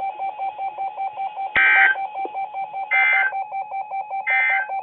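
Electronic tones on the weather radio audio: a steady, rapidly pulsing tone, with three short, higher beeps about 1.4 seconds apart.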